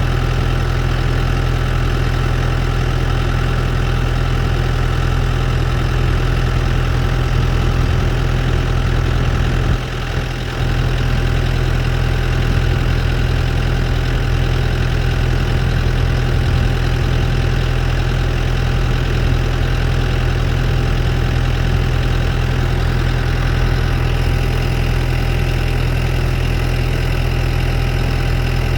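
Case IH Puma tractor engine running steadily while driving a Vermeer 504R round baler through hay. The sound dips briefly about ten seconds in.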